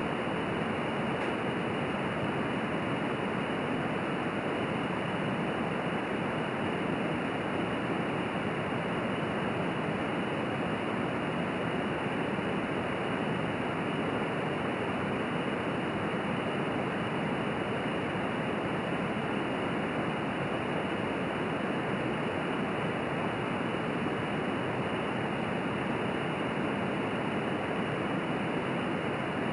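Small pressurized alcohol jet stove burning methanol under a steel mug of water, its flame making a steady, even rushing hiss with the stove at full pressure.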